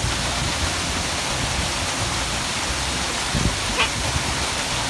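Waterfall rushing steadily, an even wash of falling water with no change in level. A brief faint high-pitched sound rises over it a little before the end.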